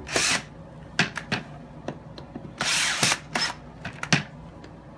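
DeWalt cordless drill driving screws into a chair's metal J-bar bracket in three short bursts of the trigger, with sharp clicks in between.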